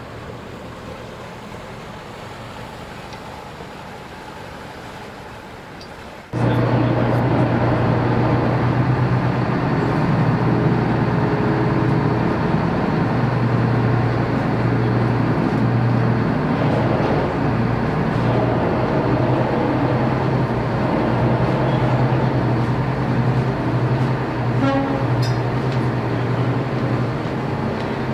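Boat engine running steadily with a low hum. The sound jumps suddenly much louder about six seconds in.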